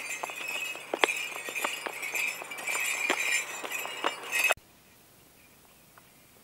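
Horse hooves clopping on an asphalt road at a walk, with metal jingling from the tack. Both cut off suddenly about four and a half seconds in, leaving only a faint background.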